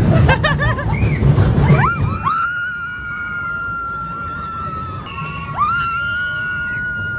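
Riders screaming on the Big Thunder Mountain mine-train roller coaster. Short rising-and-falling whoops come over the rumble of the train, then from about two seconds in, long high screams held at a steady pitch.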